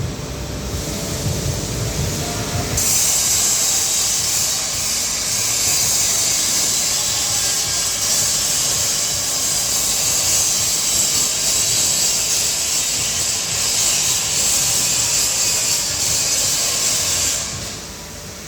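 A steady, loud hiss that starts about three seconds in and cuts off about a second before the end, following a low rumble.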